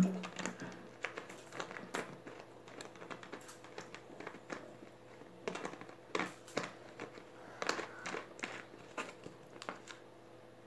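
Thin plastic drink bottle being handled: crinkling and crackling plastic with scattered small clicks as the bottle and cap are worked, busiest a little past the middle. A brief loud low sound comes right at the start.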